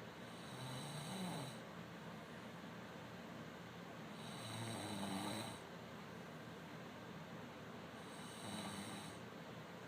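A man snoring: three snores, each about a second long, roughly four seconds apart, the middle one the loudest.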